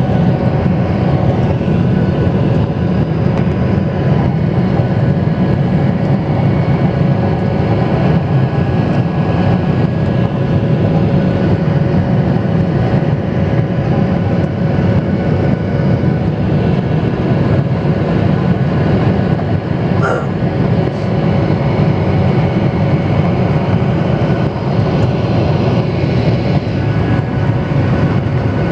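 Cabin noise of a jet airliner climbing just after takeoff. The engines and the airflow make a steady, loud, deep rumble with a few faint steady whining tones above it.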